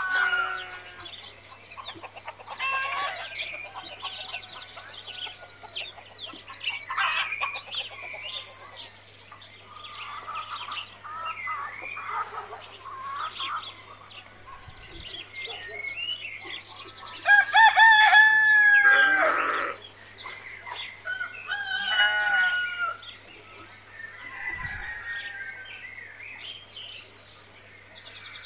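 Chickens clucking and a rooster crowing, mixed with rapid high-pitched chirping. The loudest call, a drawn-out crow of about two seconds, comes a little past halfway.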